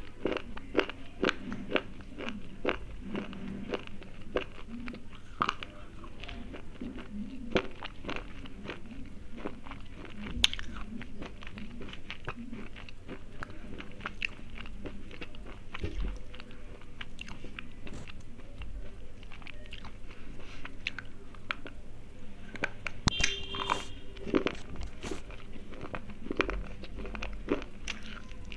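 Thick slate pencils being bitten and chewed close to the microphone: an irregular run of dry, brittle crunches and snaps.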